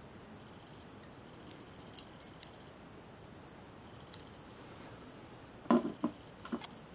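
A small black knife-guard piece from a disassembled bayonet, light clicks as it is turned in the fingers, then a few knocks near the end as it is set down on a hard plastic board.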